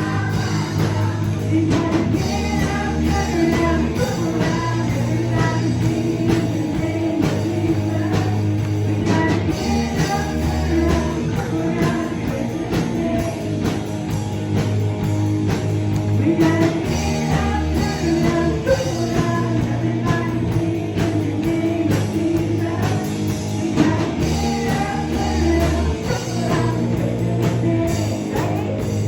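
Band music with singing, over guitar, bass and drums, in the style of a contemporary worship song.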